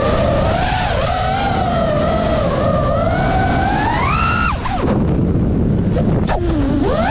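FPV quadcopter's brushless motors and propellers whining, heard from on board, the pitch following the throttle: it wavers, climbs to a high whine about four seconds in, drops away sharply as the throttle is cut for the loop, then swoops up again near the end. A low wind rush sits under the whine.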